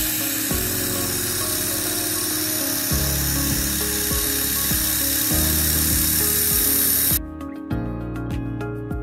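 Handheld fiber laser working on metal: a steady, loud hiss over background music that cuts off abruptly about seven seconds in.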